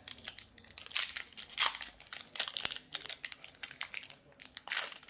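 Foil wrapper of a Magic: The Gathering Commander Legends collector booster pack crinkling in the hands as it is opened, with a rapid, irregular run of crackles.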